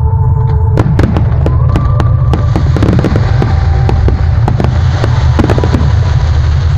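Aerial fireworks going off: a rapid string of sharp bangs starting about a second in, with a crackling hiss building through the middle and easing off near the end, over a steady low rumble.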